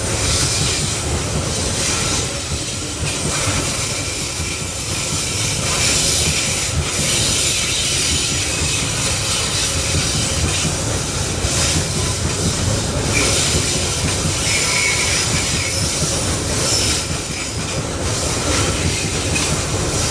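Open-top hopper wagons of a long coal train rolling past on a curve: a steady rumble and clatter of wheels on rail, with a thin high wheel squeal that comes and goes several times.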